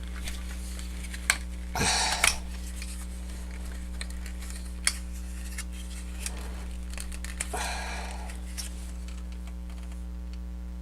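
Plastic parts of a Jinbao Razorclaw transforming robot figure clicking and scraping as its leg and foot joints are worked by hand, trying to release the feet. A few sharp clicks, with two short bursts of scraping about two seconds in and near eight seconds, over a steady low hum.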